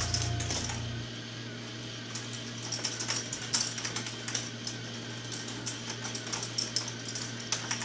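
K'nex ball machine running: plastic balls clicking and clattering along the track and lifts in an irregular patter, over a steady low hum. Background music fades out about a second in.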